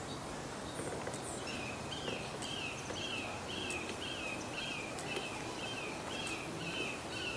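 A bird calling over steady outdoor background noise: a short, slightly falling note repeated about twice a second, starting about a second and a half in.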